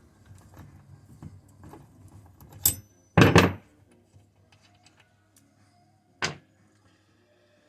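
Knocks and clatter of hand tools on a Husqvarna brush cutter's engine as its spark plug is unscrewed and taken out, with the loudest a short thud about three seconds in and a sharper knock near the end.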